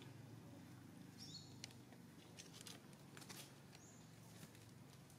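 Near silence: faint outdoor background with a low hum, two brief high chirps from a small bird, each stepping down in pitch, and a few faint ticks.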